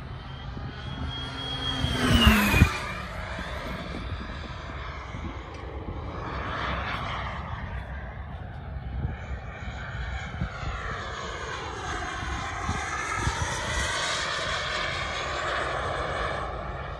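Xicoy model jet turbine of a CARF Rebel RC jet flying past: its high whine drops sharply in pitch about two seconds in, the loudest moment, as the jet passes. The jet noise then carries on and swells again near the end.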